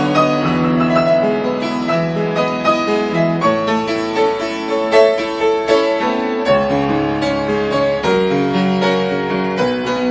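Solo piano playing a continuous, flowing passage, with a melody over sustained chords and bass notes.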